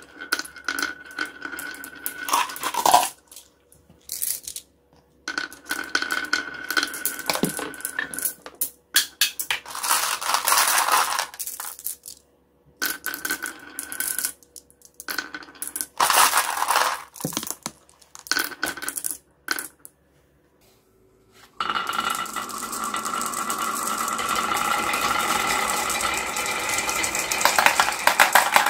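Glass marbles rolling and clattering down a carved wooden zigzag slope, clicking against each other, in runs of a few seconds broken by short gaps. About 21 seconds in, a steady, continuous rattle of many marbles rolling in a line down a wooden chute begins.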